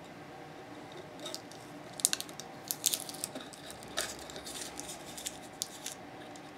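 Scattered light clicks and rustles of a small metal tool and tape being handled on a workbench, thickest in the middle of the stretch.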